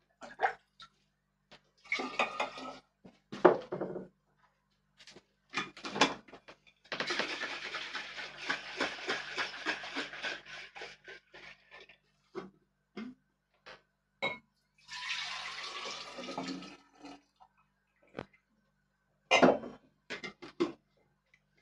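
Liquid pouring and splashing in the kitchen in several bursts, the longest lasting about five seconds, with sharp knocks and clatters of pots and utensils between them.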